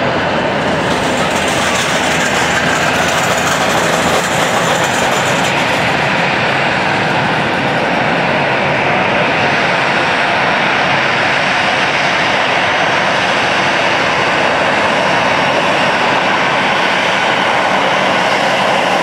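Four turbofan engines of a Boeing 747-400 freighter at takeoff power as it climbs away after lift-off, a loud, steady rumble. The hiss on top eases somewhat about halfway through while the low rumble carries on.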